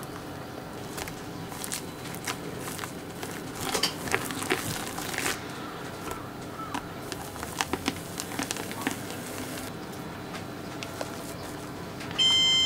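Silicone spatula and wire whisk clicking and scraping against a glass measuring jug as meringue is mixed into cake batter. Near the end comes a brief, loud, high beep.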